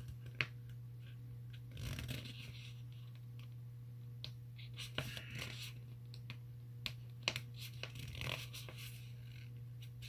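Faint rustling of paper sticker sheets with scattered small taps and clicks as they are handled, over a steady low hum.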